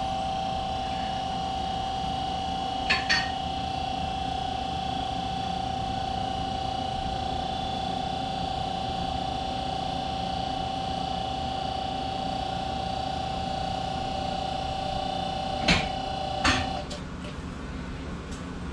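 QuickJack portable car lift's electro-hydraulic pump running with a steady hum as it raises the car. A pair of clicks comes about three seconds in and two more near the end, just before the pump cuts off.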